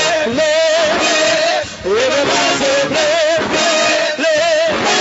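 Live gospel church music played under a congregational song, with singing. A held note wavers with vibrato throughout, and short sliding vocal phrases come and go.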